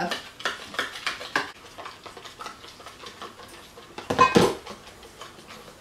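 A spoon stirring in a mixing bowl, clicking and scraping against its sides. About four seconds in there is a louder clatter of dishes being handled.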